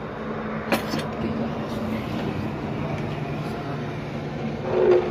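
A steady low machine hum, with a sharp knock about three-quarters of a second in and a brief louder sound near the end.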